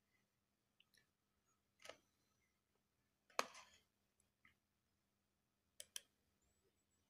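Near silence broken by a few soft clicks: one about two seconds in, a louder one around three and a half seconds, and a quick pair near the end.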